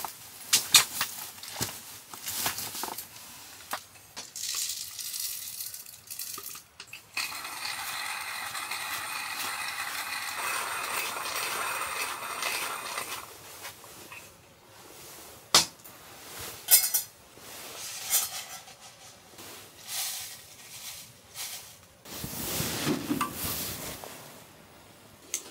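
Hand coffee grinder being turned, a steady grinding noise for about six seconds in the middle, with clinks and knocks from coffee gear being handled and set down before and after.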